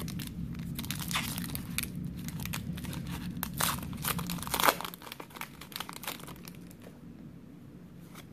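Foil booster-pack wrapper crinkling and tearing as it is ripped open, a dense run of sharp crackles for about the first five seconds, then softer, sparser rustling as the cards come out.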